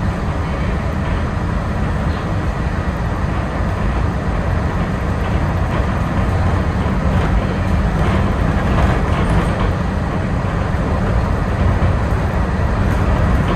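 Inside a moving Walt Disney World Mark VI monorail car: a steady running rumble from the train, with a faint steady high tone above it.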